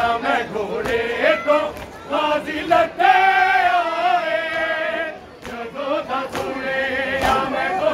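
Noha sung by a group of men's voices in a wavering chant, with one long held line in the middle, over a crowd of mourners. Sharp slaps of chest-beating (matam) come now and then throughout.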